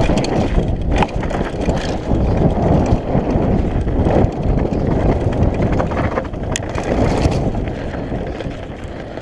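Mountain bike descending a dirt singletrack: tyres rolling over dirt and roots with sharp knocks and rattles from the bike over bumps, under heavy wind noise on the microphone. It eases off a little near the end.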